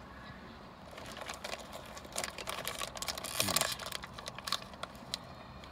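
Irregular close-up crackling and clicking from eating Hello Panda biscuits: a crunchy biscuit being chewed while the plastic packaging is handled. The sound is busiest around the middle.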